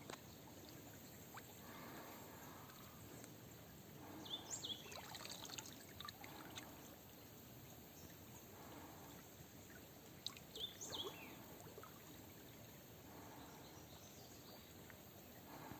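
Faint riverside ambience: a bird sings a short phrase of high, stepping, falling notes twice, about six seconds apart, over a soft trickle of water.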